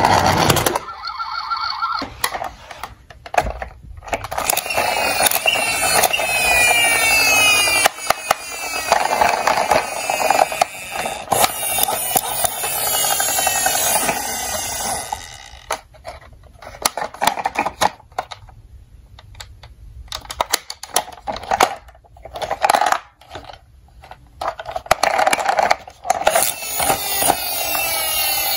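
Battery-powered toy ambulances playing their electronic siren sounds, with sweeping rises and falls in pitch, over repeated clicks and rattles of hard plastic toys being handled.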